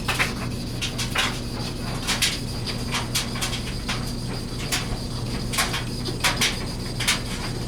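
Knife blade stroked back and forth on a fine-grit Japanese water stone, polishing the primary grind: short scraping strokes, about one or two a second, over a steady low hum.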